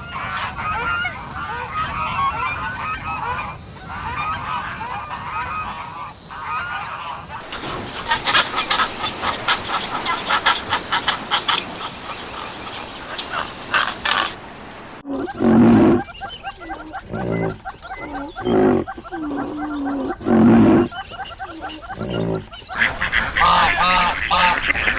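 Domestic ducks and geese calling. First comes a flock's rapid high chatter and quacking, then, after abrupt changes of scene, separate lower honking calls about a second apart.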